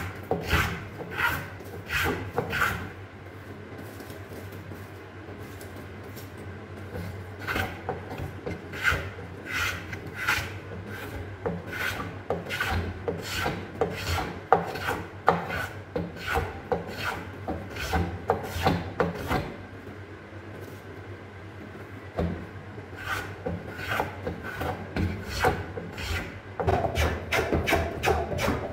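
Hand block plane shaving wood in quick repeated strokes, about two a second, pausing for a few seconds twice along the way.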